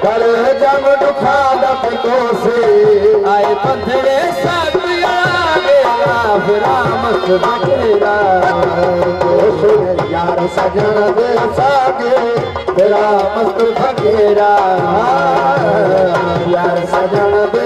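Live Sindhi folk music: a tabla-type hand drum plays a steady rhythm, its bass strokes bending down in pitch, under a wavering, ornamented melody line.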